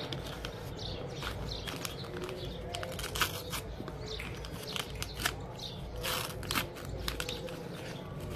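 Lined notebook paper rustling and crinkling in short, irregular snaps as hands fold and crease it, over a steady low hum.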